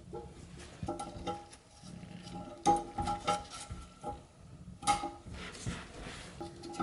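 Hard plastic parts of a new toilet flush handle clicking and knocking against a porcelain tank, each knock making the tank ring briefly. The knocks are irregular, the loudest about a third of the way in and again about two-thirds in.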